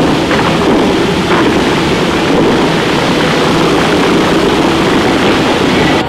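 Bellagio fountain water jets spraying high and crashing back onto the lake: a loud, steady rush of water.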